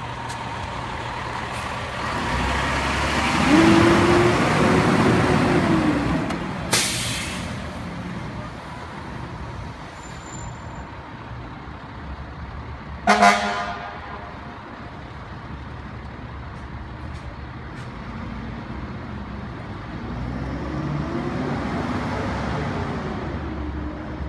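Fire engine's diesel engine revving as it pulls away, with a short sharp hiss of air brakes about seven seconds in. A brief horn toot comes around thirteen seconds in, and the engine revs up again near the end as the truck moves off.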